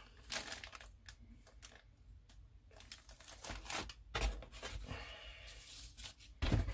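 Plastic-bagged model kit parts and a paper instruction sheet being handled over a cardboard box: faint, intermittent crinkling and rustling, with a couple of soft thumps in the second half.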